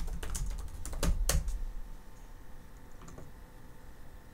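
Computer keyboard keys clicking: a handful of keystrokes in the first second and a half, mixed with a low thump of the desk, then one more faint click about three seconds in.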